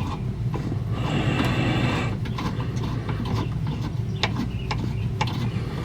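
Ratchet wrench clicking in irregular strokes as the fuel tank strap bolts are backed out, with a second or so of faster, continuous ratcheting about a second in.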